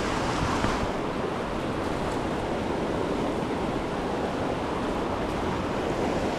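Steady rush of a small mountain creek running fast over rocks in white water.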